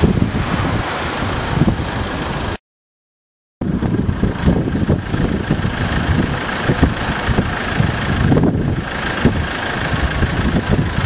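Strong wind buffeting the microphone in irregular gusts, over the rush of rough sea. The sound drops out to silence for about a second near the start.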